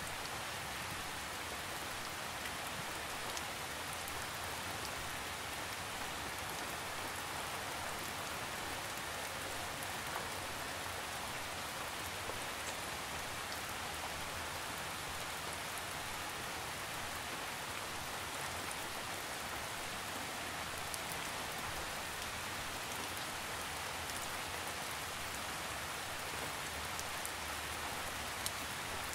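Steady light rain: an even hiss of falling drops, with occasional single drops ticking more sharply.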